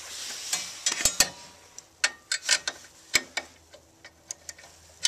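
Quarter-inch ratchet wrench clicking in short, irregular strokes, with small metal clinks, as the nut holding the waterer's counterweight is loosened.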